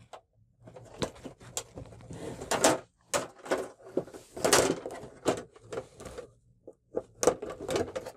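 An LED TV panel's black frame being pried off with a thin metal tool: irregular clicks, scrapes and short rattles of the frame against the panel, with the loudest scrapes about two and a half and four and a half seconds in.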